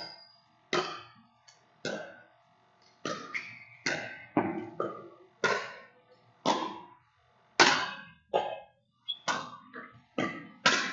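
Pickleball paddles striking a plastic pickleball back and forth in a rally, with the ball bouncing on a hard gym floor. It is a string of sharp pops, roughly one a second with some quicker pairs, each ringing briefly in the echoing hall.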